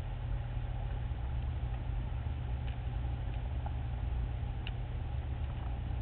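Underwater ambient noise: a steady low rumble with a few faint, scattered clicks.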